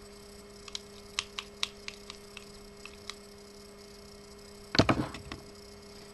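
A string of light, irregular clicks and taps, then one louder thump about five seconds in, over a steady low electrical hum.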